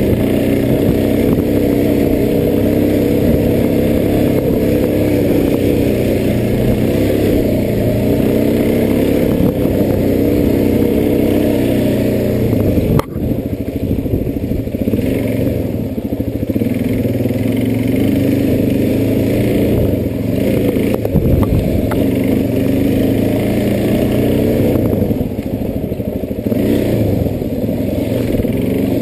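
Enduro dirt bike engine running continuously on a trail ride, its revs rising and falling as the rider works the throttle. About halfway through the engine note briefly drops off sharply, then picks up again.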